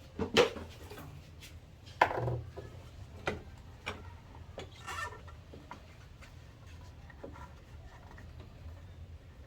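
Handling noises as a new air intake hose is pushed and worked onto the plenum of a Range Rover's GEMS 4.0 V8: a few sharp knocks and short rubbing scrapes. The two loudest come about half a second in and about two seconds in, with lighter ones over the next few seconds.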